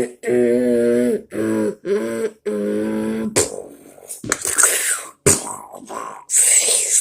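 A person's voice holds a few steady pitched notes for about three seconds, then breaks into beatboxing: sharp mouth clicks and hissing hi-hat-like sounds.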